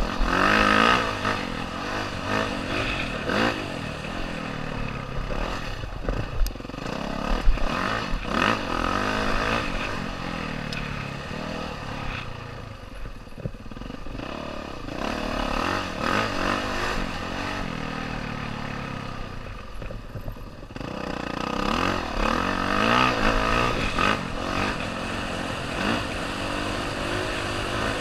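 Dirt bike engine heard from the rider's helmet, revving up and easing off again and again as the throttle opens and closes, with a few sharp knocks about six to eight seconds in.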